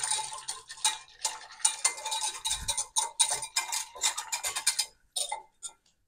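Metal wire whisk clicking rapidly against the sides of a glass measuring jug, stirring packet jelly into hot water until it dissolves. The stirring stops about five seconds in, followed by a few last clinks.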